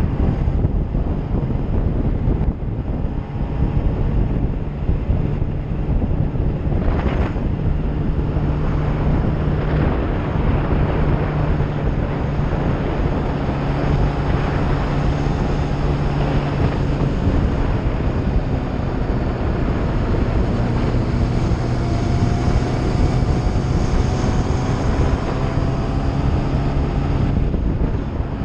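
Sport motorcycle's engine running steadily at road speed, mixed with wind noise rushing over the microphone. Its pitch creeps slowly upward in the second half.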